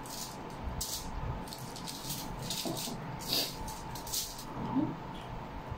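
Close-up eating sounds: irregular short smacks and wet chewing noises as noodles and dried fish are eaten by hand, over a faint steady tone.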